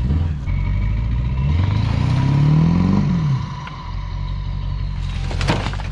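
Car engine running, revved once: the pitch climbs for about a second and a half, then drops back to idle. A single sharp clatter comes near the end.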